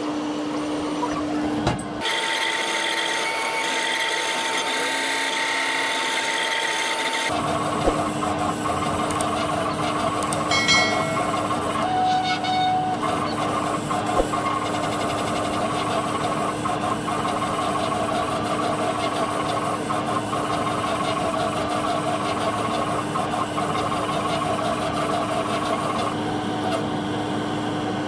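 Laser cutter running as it cuts plywood: the motors driving the head and gantry over a steady hum. The sound changes abruptly about two seconds in and again about seven seconds in.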